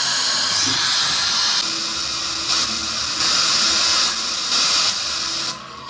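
FM radio static hissing from a Philco micro system's speaker as the tuner is stepped up the band between stations. The hiss jumps louder and softer in steps every second or so, and drops off near the end.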